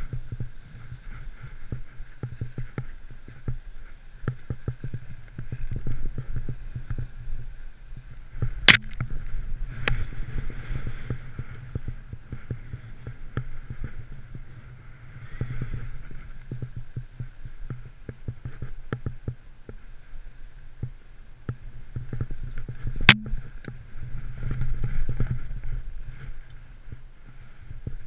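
Snowboard carving through deep powder, heard from a camera worn by the rider: a steady low rumble of board on snow and wind, with frequent small knocks. Two sharp clicks stand out, about nine seconds in and again about twenty-three seconds in.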